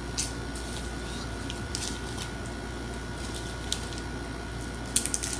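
Plastic cheese package crinkling and rustling as it is cut open with a knife: short crinkles now and then, and a sharper cluster near the end. Under it runs the steady hum of a loud air conditioner.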